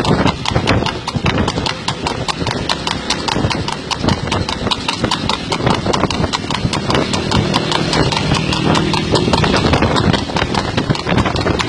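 Horse trotting fast on a paved road while pulling a light racing cart: a rapid, even clip-clop of hooves on the hard road surface.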